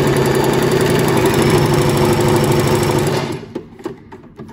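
Domestic sewing machine running under the foot pedal, stitching through fabric with a rapid, even rhythm, then stopping about three seconds in, followed by a few light clicks. Its feed dogs, just reset to the right height, are carrying the fabric through properly.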